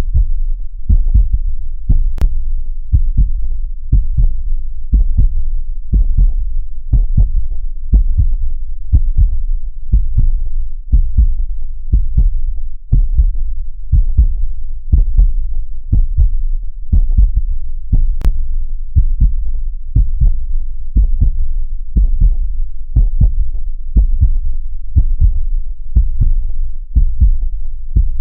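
Heartbeat sound: steady, even pairs of deep, low thumps, about one beat a second, meant to mimic a heartbeat heard from inside the womb.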